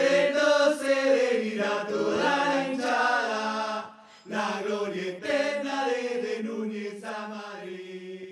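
Closing bars of a football-terrace-style chant song: a small chorus of voices chanting together over a steady low note, with a short break about four seconds in, trailing off near the end.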